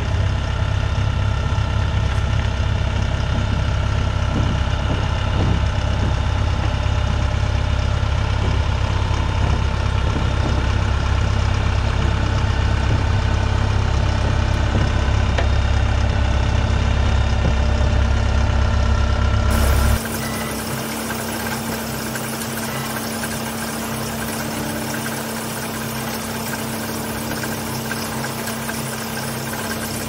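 Diesel engine of a horizontal directional drill running steadily with a deep rumble. About two-thirds of the way through, the low rumble drops out abruptly, leaving a lighter engine sound with a steady hum.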